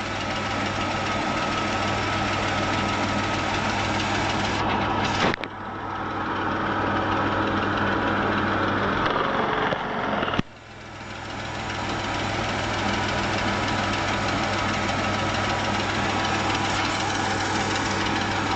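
1990 Chrysler Imperial's V6 engine idling steadily while its A/C system is being charged, before the compressor kicks on. About five seconds in, the sound changes to a hissier tone. About ten seconds in, it drops sharply, then builds back up.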